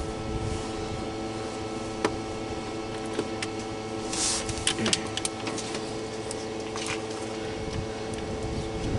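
Sharp metal clicks and a short scrape as a new oil pump is handled and pushed up into place against the underside of a 1.6 L diesel engine block: one click about 2 s in, a scrape about 4 s in and a cluster of clicks just after, and a few more later. A steady background hum of several level tones runs underneath.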